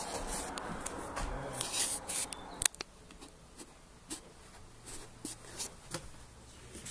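Scuffing and rubbing handling noise from a handheld camera being carried, louder for the first few seconds. One sharp click comes about two and a half seconds in, followed by fainter scattered ticks.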